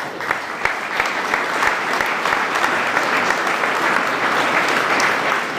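Audience applauding: many hands clapping at a fairly even level.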